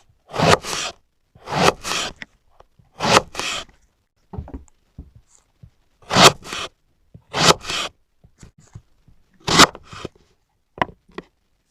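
Knife cutting through eggplant in crisp, crunchy strokes, most of them double, coming about every second to second and a half. They are fainter and more scattered for a couple of seconds in the middle.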